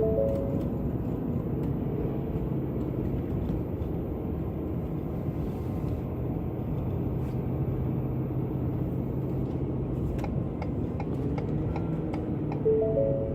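Ford F350 diesel pickup towing a trailer, heard from inside the cab as a steady engine and road rumble. A short three-note electronic chime sounds at the start and again near the end. Faint ticking, about twice a second, comes in over the last few seconds.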